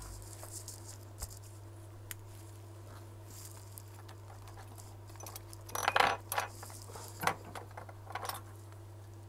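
Light clinks and taps of small tools and parts being handled on a repair bench, over a steady low hum; a short clatter about six seconds in is the loudest.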